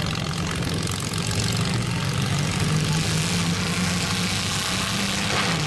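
Engines of several compact demolition derby cars running and revving: a steady drone whose pitch steps up and down, with no crash impacts.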